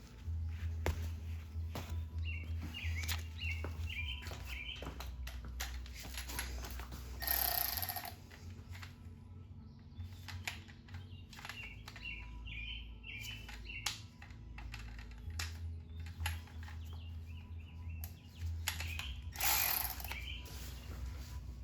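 Small birds chirping in short repeated series, over scattered clicks and clatter of hand tools. A low steady rumble runs underneath, and two brief rushes of noise come about a third of the way in and near the end.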